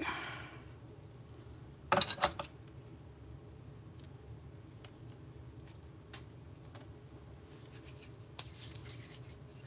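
Small handling sounds of craft work with a hot glue gun and a foam-taped ring: a quick run of sharp clicks about two seconds in, then faint ticks and rubbing as the ring is lifted and laid down on a cutting mat, over a low steady hum.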